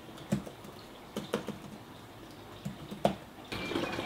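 Typing on a laptop keyboard: scattered, irregular key clicks.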